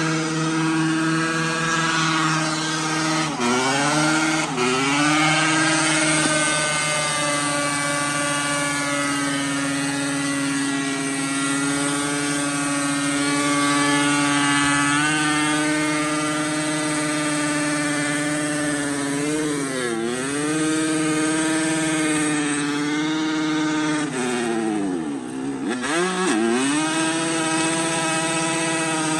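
KTM 250 dirt bike engine held at high revs in a stationary burnout, the rear tyre spinning on the ground. The revs dip sharply and climb back a few times: around four seconds in, near twenty seconds and again near the end.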